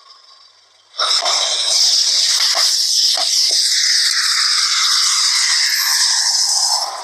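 A loud, steady hiss starting about a second in, like spray or rushing water, with its lower part slowly falling in pitch.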